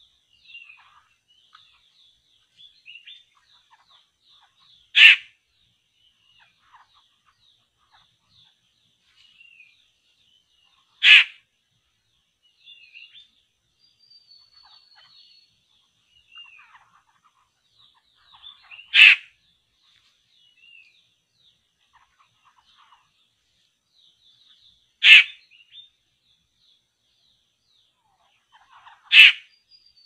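A loud, short, harsh bird call repeated five times, several seconds apart, over faint high chirping of small birds.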